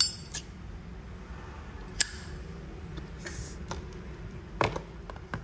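A Zippo lighter clicking as a cigarette is lit: a sharp click at the start, another about two seconds in, and a cluster of clicks near the end, over a low room hum.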